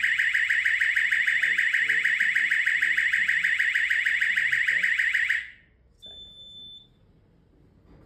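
Fire alarm sounder going off in alarm with a loud, fast-pulsing high tone. It cuts off suddenly about five seconds in as the alarm is silenced at the control panel, followed by a short faint beep.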